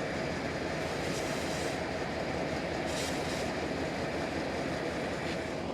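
Dodge van engine idling steadily, a low even rumble, heard from inside the cab.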